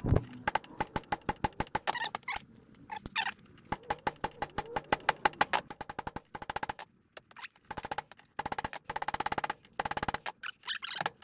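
Hammer striking a steel drift held in locking pliers, driving a tight interference-fit pin into a VW Beetle front-beam part clamped in a vise: quick, regular metallic blows, with a pause a little past halfway and then short rapid bursts of strikes. The pin is a tight fit and goes down only slowly under the blows.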